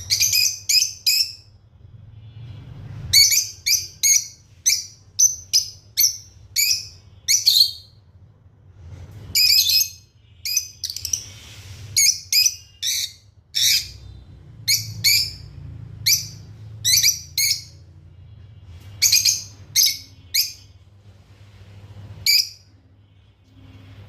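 Lovebirds chirping: short, sharp, high-pitched chirps in quick runs of several a second, broken by pauses of a second or two. A faint steady low hum lies underneath.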